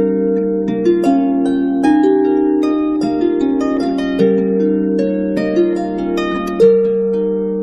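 Background instrumental music: a melody of plucked notes that ring on and overlap.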